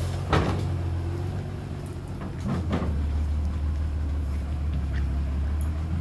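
Heavy diesel engine of earthmoving machinery running steadily, with a sharp clank about a third of a second in and two fainter knocks around two and a half seconds in. The engine note drops lower just before three seconds in.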